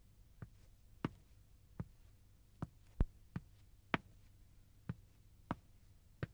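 About ten sharp knocks or clicks at uneven intervals, roughly one every half second to one second, over a faint low hum. The loudest comes about three seconds in.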